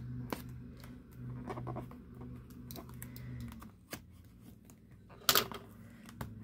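Hands picking and scratching at the wrapping of a sealed package: a run of light clicks and scrapes, with a louder rustle about five seconds in. A low steady hum runs underneath and stops a little past halfway.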